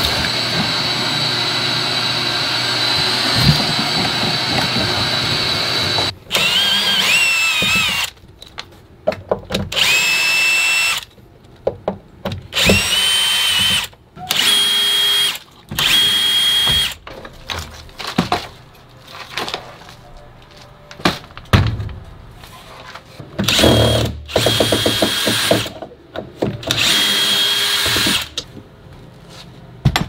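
A shop vacuum runs with a steady whine for the first six seconds. A cordless drill/driver then runs in a series of short bursts, each spinning up in pitch and then holding, as it backs out the door's hinge screws so the door can be taken off.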